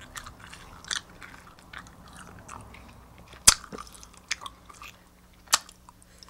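A person chewing a wad of hard bubblegum close to the microphone: soft wet mouth noises broken by scattered sharp clicks, the loudest about halfway through.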